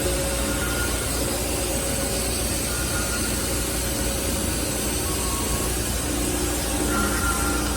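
Takamaz X-15 CNC lathe running under power: a steady machine hum and hiss, with short high whining tones now and then.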